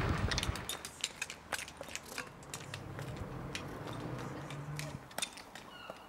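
Footsteps of people walking on a wet pavement, with scattered light clicks and taps at an irregular pace.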